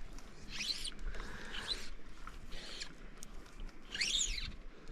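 Birds calling: a few high chirps that sweep quickly up and down in pitch, about a second in and again, loudest, about four seconds in.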